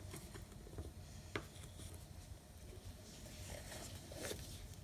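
A paintbrush scraping leftover paint from inside a plastic paint bottle: faint scraping and rubbing, with one sharp click about a second and a half in.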